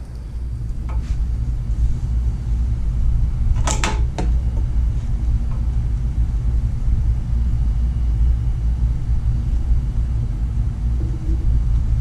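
A steady low rumble, with a quick run of sharp clicks about four seconds in as split plastic wire loom is worked onto a wiring harness by hand.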